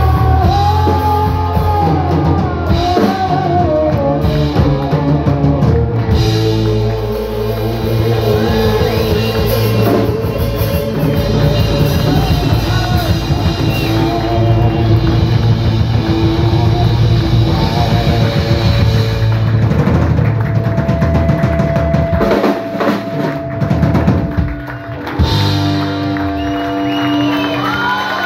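Live rock band playing: a singer over electric guitar and a drum kit. About three-quarters of the way in, the low notes drop out for a few seconds while the drums carry on, then the band comes back in.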